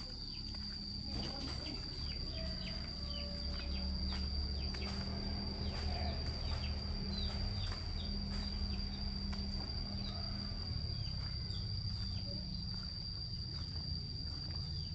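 Steady high-pitched insect trill with many short, falling bird chirps over it, soft footsteps, and a low hum underneath.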